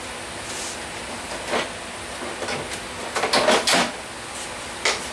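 Knocks and clatters of tools and storage being handled at a workshop bench: a single knock, then a short burst of clattering a little past three seconds in, and one more sharp knock near the end.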